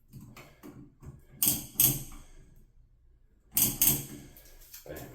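A run of short, sharp rattles and clatters from handling fittings. The loudest come in two close pairs, about a second and a half in and again near four seconds.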